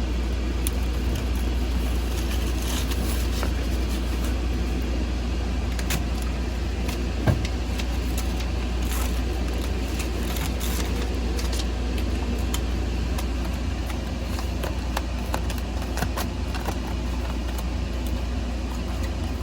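Steady low hum under scattered clicks and light metallic clinks from hands working metal foil tape and bolts on the furnace's face-plate openings; one sharper click about seven seconds in.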